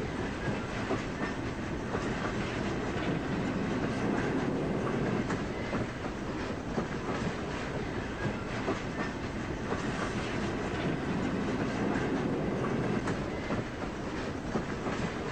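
Train running along the rails: a steady rumble with scattered faint wheel clicks.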